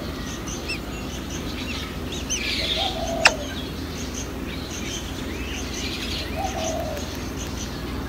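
Blackbird nestlings giving thin, high begging chirps in repeated clusters while being fed at the nest. A short lower call comes twice, and a single sharp click sounds a little after three seconds.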